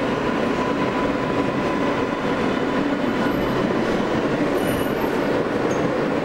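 Interior of a Kawasaki R143 subway car running through the tunnel and into a station: steady rumble of the wheels on the rails, with a faint whine that fades out about halfway through.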